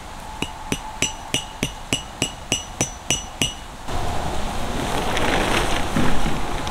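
Hammer driving a metal tent peg: about eleven quick, ringing metallic strikes, roughly three a second, that stop a little before four seconds in. A steady rushing noise then takes over and grows louder.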